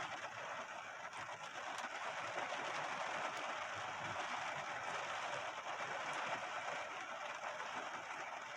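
Steady rain on a car's roof and glass, heard from inside the car as an even hiss with faint scattered ticks.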